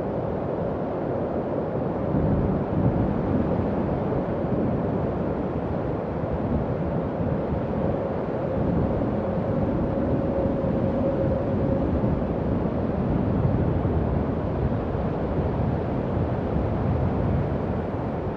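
Howling wind sound effect: a steady low rush of wind with a faint held howling tone above it that swells a little around the middle.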